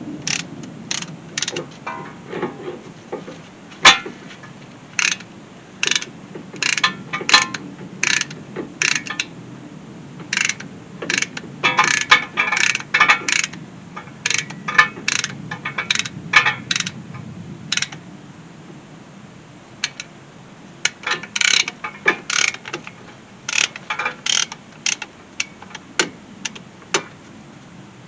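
Irregular metallic clicks and clinks of a hand tool working the spreader spring and hardware onto a brake caliper, coming in bunches with short pauses.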